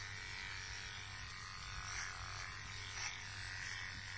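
Small cordless Wahl Arco dog clipper running with a steady, quiet buzz, its adjustable blade set to a 9, as it trims the hair on the inside and back of a poodle's leg.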